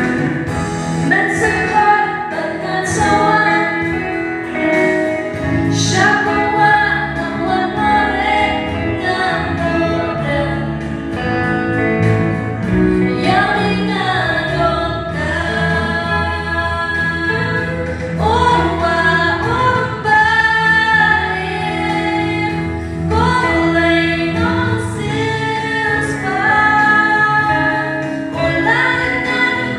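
Choir singing a gospel song, with steady low bass notes under the voices.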